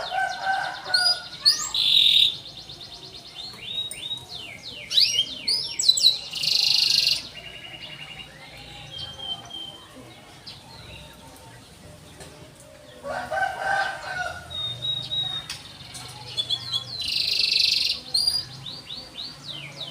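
Domestic canary singing: phrases of quick falling chirps and buzzy trills, with a quieter pause in the middle.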